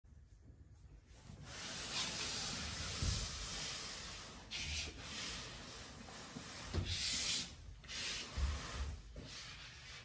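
Large cardboard shipping box being pushed across a floor: a rough scraping rub that comes and goes in several shoves, with a few low thuds.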